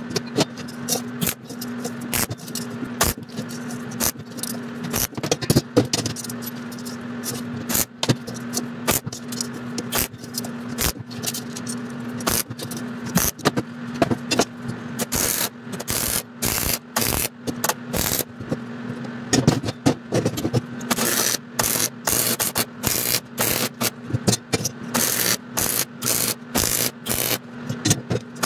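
Steel pieces clinking and scraping on a steel jig plate as small rope guides and frame bars are handled and set in place. Sharp clicks run throughout and come quicker and more evenly in the second half, over a steady low hum that fades out about halfway.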